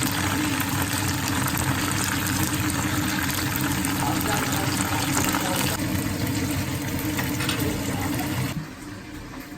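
A steady rushing hiss with faint crackles that drops away about eight and a half seconds in.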